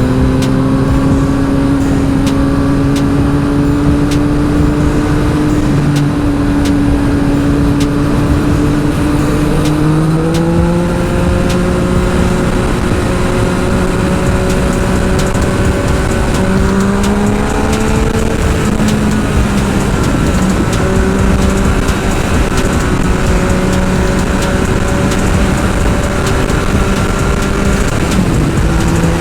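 Yamaha XSR900's inline-three engine through a full Akrapovic exhaust, running under way with wind rushing past. The engine note creeps upward, steps up about ten seconds in, climbs again, then drops back a little past the middle and holds steady.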